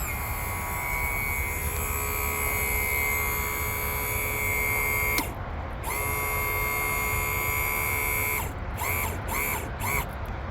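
Power trim and tilt pump motor of a 1989 Mercury 200 hp BlackMax outboard running, a steady electric-motor whine as the new hydraulic unit tilts the engine up. It stops for a moment about halfway, runs again, then comes in several short bursts near the end as the engine reaches full tilt.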